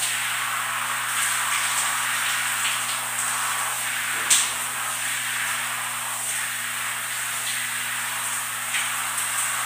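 Overhead shower running steadily, its water spraying and splashing onto a person's head and body, with a faint steady hum underneath. There is one short sharp knock about four seconds in.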